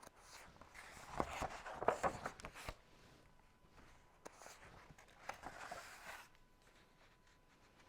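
A picture book being handled, with paper rustling and small clicks in two bouts, the first about a second in and the second near the middle.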